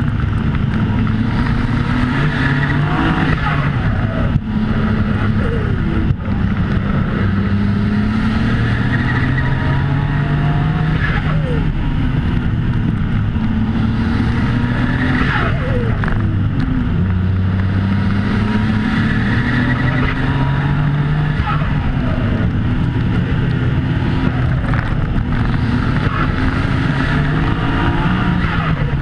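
1995 Nissan Skyline GT-R V-Spec's twin-turbo straight-six running hard at race pace, its pitch climbing and falling over and over as it accelerates, shifts and brakes for corners, with two short cut-outs early on.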